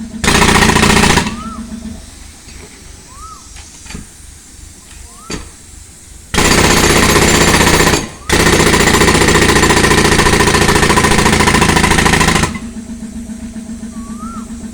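Pneumatic concrete breaker run from a tractor-driven air compressor, hammering concrete. It gives a short burst of about a second near the start, then a long run of about six seconds with a brief pause partway through. Background music is heard in the quieter stretch and near the end.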